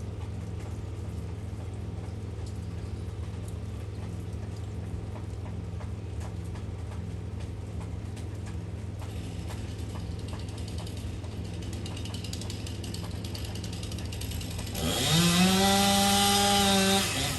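Chainsaw running steadily at low speed, then revved up about fifteen seconds in, its pitch rising quickly and holding high for about two seconds before it drops back.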